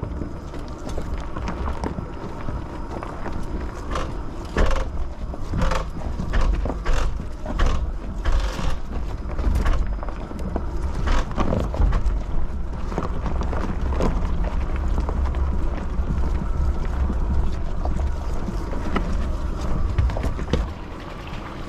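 Rivian R1T electric pickup travelling slowly over a rough off-road trail. A steady low rumble runs throughout, with frequent irregular knocks and clunks as the truck goes over rocks.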